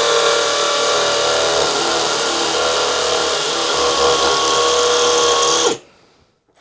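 Cordless combi drill in hammer action boring a 7 mm masonry bit into a concrete block, running loud and steady. Near the end the motor winds down and stops as the hole is finished.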